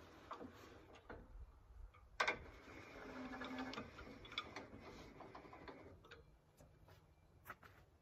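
Faint, irregular mechanical clicking and ticking from the sawmill's hardware as it is handled, with one sharp clack about two seconds in.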